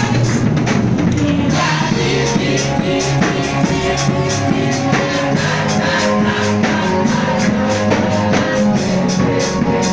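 Band music with a steady drum beat under held chords.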